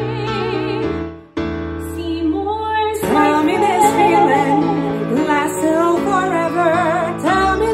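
A woman and a man singing a show-tune duet with vibrato over a piano backing track; the sound dips out briefly about a second and a half in.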